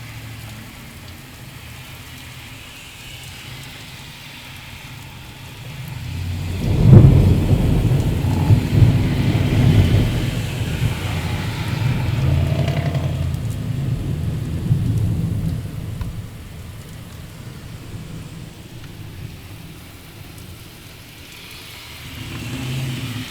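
Steady heavy rain, then a loud clap of thunder about a quarter of the way in. The thunder rolls and rumbles for roughly ten seconds before fading back under the rain, following the lightning flash just before.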